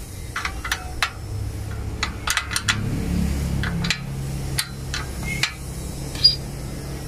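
Combination wrench clinking on the nut and bolt of a scaffolding-clamp antenna mount as the nut is tightened: a dozen or so sharp metal clicks at irregular intervals, over a steady low hum.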